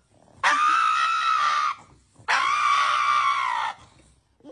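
Pug screaming in protest while its nails are trimmed: two long, high wails, each lasting over a second, one after the other.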